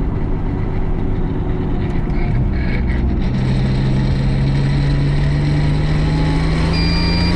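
Turbocharged 3.8-litre Buick V6 of a VR Commodore ute heard from inside the cabin while driving. The engine note drops about two seconds in, like a gear change, then climbs steadily as the engine pulls, with a faint high whistle near the end.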